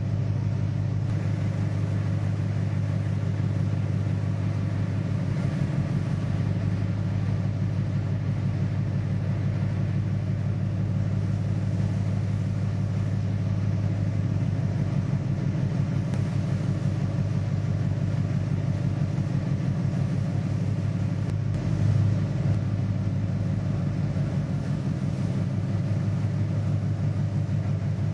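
Steady low rumble of a ship's engine running, with a fast, even pulse throughout and a brief louder bump about 22 seconds in.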